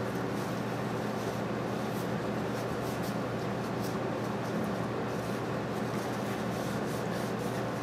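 Cloth rag rubbing over a small engine's crankshaft as it is wiped clean and turned in gloved hands, a light scuffing over a steady low hum.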